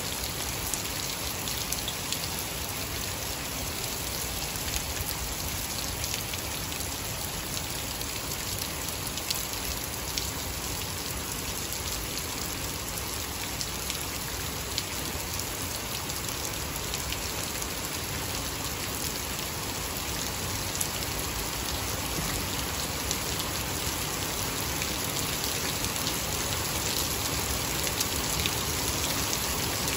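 Heavy rain pouring onto waterlogged grass and puddles: a steady hiss with many separate drops ticking, growing somewhat louder near the end.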